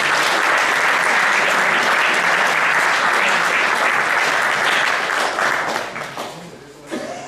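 A crowd applauding, with many hands clapping steadily, then dying away after about five seconds.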